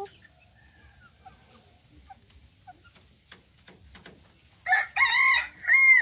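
Young ornamental cockerel crowing once near the end: a loud crow about a second and a half long, broken by a short gap before its last note. Before it, soft clucking from the flock.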